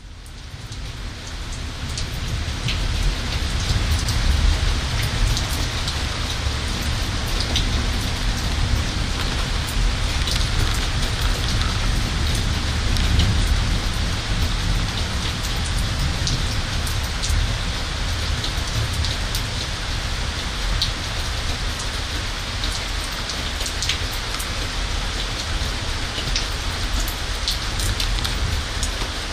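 Rain from a summer thunderstorm falling steadily, with scattered close drops ticking sharply over a low rumble underneath. It fades in over the first few seconds.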